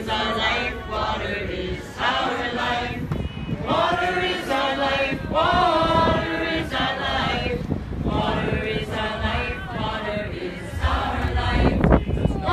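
A crowd singing a protest song together, many male and female voices in a slow, chant-like unison. A low rumble comes in near the end.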